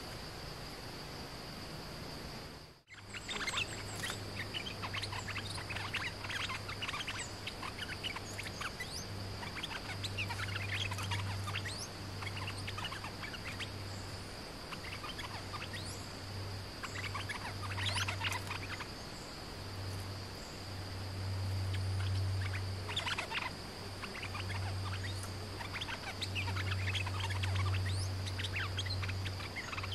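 Stripe-throated bulbuls calling in scattered bursts of quick chirps, over a steady high insect whine and a low hum that comes and goes. The sound drops out for a moment about three seconds in.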